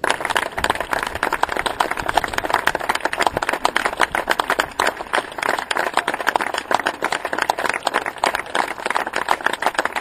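Crowd applauding, many hands clapping densely and steadily after starting abruptly.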